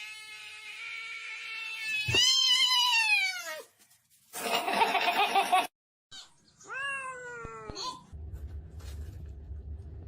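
A cat meowing in long drawn-out yowls that fall in pitch, the loudest about two seconds in and another near seven seconds, with a short harsh noisy stretch between them.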